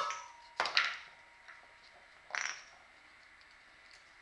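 A dog pawing and nosing a wooden puzzle board on a tile floor, the board and its wooden pegs knocking and scraping against the tiles in a few short clattering bursts, the last about two and a half seconds in.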